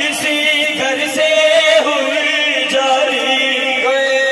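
A man chanting a noha, a Shia mourning lament, through a microphone and sound system, with long, wavering held notes.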